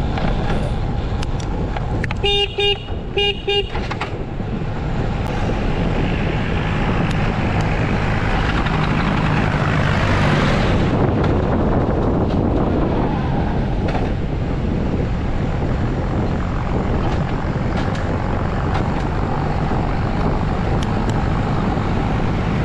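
Motorcycle engine running under way, with road and wind noise; about two seconds in a horn gives several short beeps in quick succession. The rush of noise swells for a few seconds around ten seconds in.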